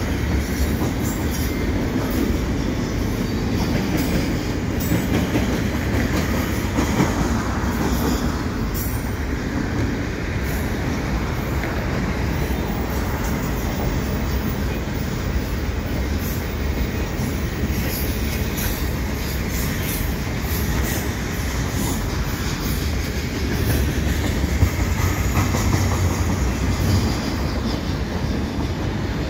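Double-stack container well cars of a CN freight train rolling across a steel girder bridge: a steady rumble of wheels on rail with scattered clicks and clanks.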